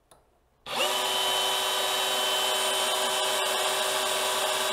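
DeWalt DCH273 cordless SDS-plus rotary hammer started about two-thirds of a second in and run free with no load at a steady speed of about 1200 rpm, giving an even, high motor whine.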